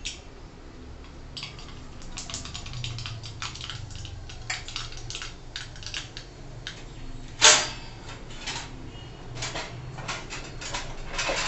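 Mustard seeds popping in hot oil: quick, irregular clicks, with one louder knock about seven and a half seconds in.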